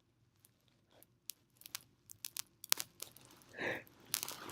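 Soft mouth clicks and lip smacks from a person pausing while speaking close to the microphone, more of them in the second half, with a quiet breath near the end.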